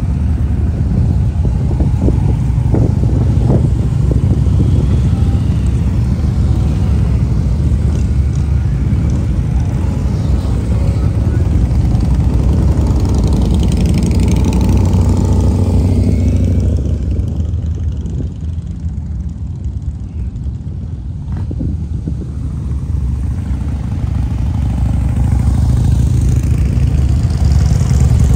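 Motorcycle engines running, a steady low rumble that eases off for a few seconds past the middle and then builds up again.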